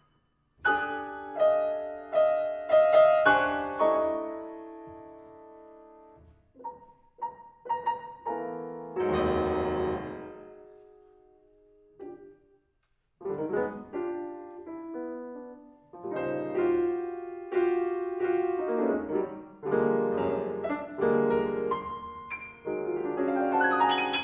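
Solo acoustic piano playing a contemporary concert piece built on Taiwanese folk tunes. Loud chords strike about half a second in and ring away, sparse notes follow, and a heavy chord with deep bass lands near ten seconds. After a brief hush around twelve seconds, quicker and busier passages take over.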